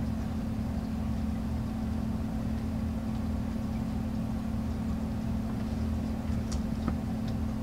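A steady low mechanical hum, with a few faint light ticks near the end.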